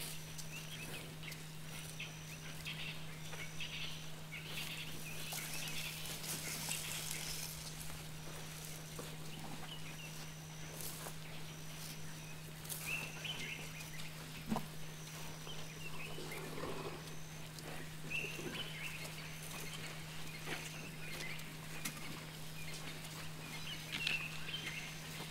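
A herd of African elephants walking through dry grass and leaf litter: scattered rustling, soft footfalls and twig snaps, with one sharp snap about halfway through. Under it runs a steady low hum, and a faint high chirp repeats about once a second.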